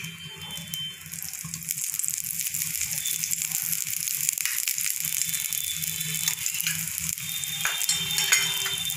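Moong dal chilla batter sizzling and crackling on a hot iron tawa, louder from about a second in as a spoonful of oil is spread over it.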